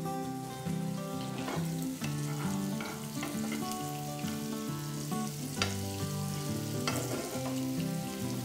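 Stuffed bitter gourds sizzling in hot oil in a nonstick frying pan, with a metal spoon clicking against the pan a few times as masala is spooned over them. A soft melody plays behind.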